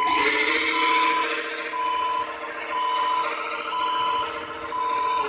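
Radio-controlled 8x4 dump truck driving through mud, its electric drive motor and gears giving a steady whine, while a reversing beeper sounds a short beep about once a second.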